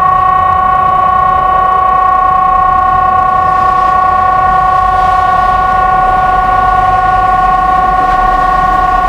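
Electronic outdoor warning siren of the Swedish 'Hesa Fredrik' system sounding one steady, unbroken tone made of several pitches at once, with no rise or fall: the continuous tone of the 'faran över' (danger over) all-clear signal.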